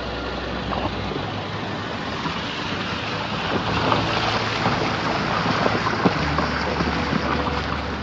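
Car driving slowly through water flowing across the road: tyres hissing and splashing, with scattered small splashes and clicks over the low hum of the engine. The splashing grows louder about halfway through.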